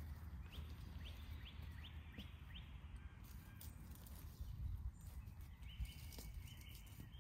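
Woodland ambience: a small bird calls a quick series of about six short rising notes, then a run of slightly longer, flatter notes near the end, over a low steady rumble and a few faint clicks.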